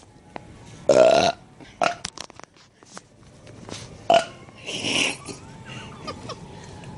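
A person lets out a loud, deep belch about a second in, followed by a few shorter vocal sounds around two and four seconds.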